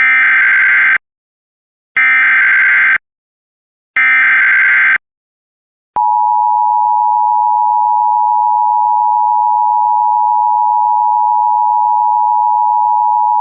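Emergency Alert System tones opening a tornado warning: three one-second bursts of SAME header data, a harsh digital screech, about a second apart, then a steady EAS attention tone that starts about six seconds in and holds.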